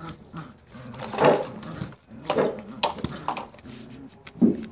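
Puppy and older dog tugging over a plush toy, with several short dog vocal sounds, the loudest about a second in and just before the end.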